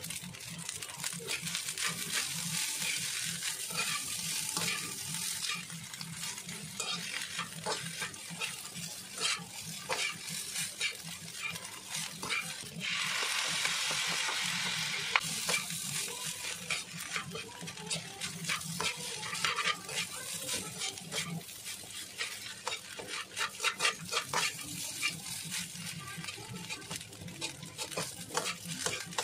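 Fried rice being stir-fried in a hot wok with a metal slotted spatula: a steady sizzle with frequent scrapes and clicks of the spatula against the pan. About thirteen seconds in, a louder hiss swells for a couple of seconds as dark sauce hits the hot pan.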